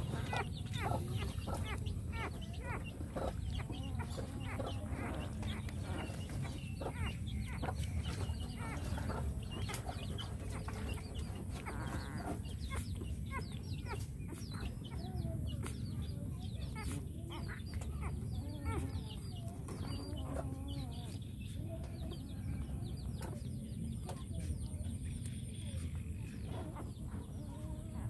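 Young puppy suckling at a baby bottle's teat: many short clicks and small squeaks, over a low steady rumble.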